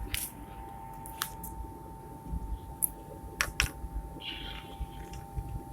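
Scattered sharp clicks and handling knocks, with a short hissing scrape about four seconds in, over a steady hum and low rumble.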